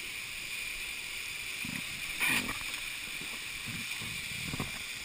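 Steady rush of a waterfall close by, with a brief louder burst of noise a little over two seconds in and a few soft low thumps.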